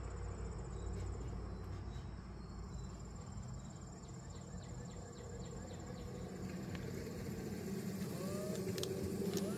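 Crickets chirping over a low steady background hum. About a second before the end, a cordless drill starts to spin up with a rising whine as it begins driving into the wooden spacer.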